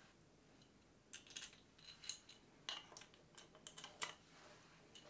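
Faint, irregular light clicks and small rattles of screws and a screwdriver being handled, over about three seconds.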